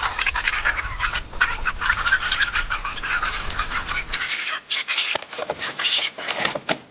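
Banded mongooses chittering and squealing in rapid, overlapping calls as they squabble, with a low rumble under the first four seconds.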